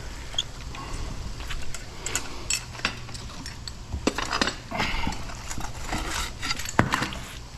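Scrap metal pulled from the water by a fishing magnet (rebar and bike spokes), clinking and clanking irregularly as it is handled. A few sharper knocks come through, the loudest near the end, over a steady low hum.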